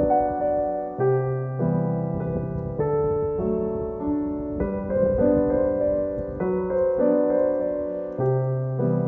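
Background piano music: slow, gentle chords held and changed about once a second.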